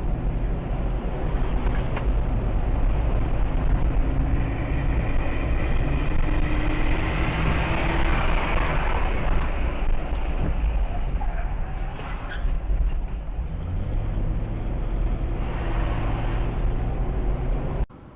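A car driving: steady engine and road noise whose pitch drifts up and down a little, cut off abruptly near the end.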